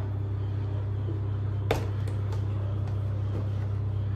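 A steady low mechanical hum, with one sharp knock about one and a half seconds in and a few faint clicks as a phone is handled and set down among plastic containers.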